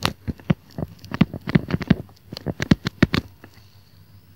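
Stylus tapping and scratching on a tablet screen during handwriting: a quick, irregular run of clicks that stops a little past three seconds in.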